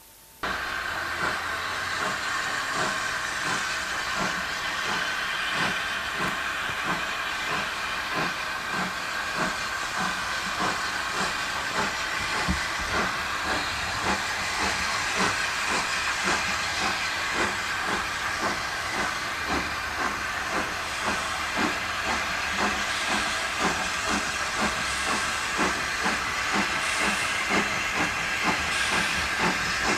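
USATC S160 2-8-0 steam locomotive no. 5820 working a train, its exhaust beating in a steady rhythm over a constant hiss of steam.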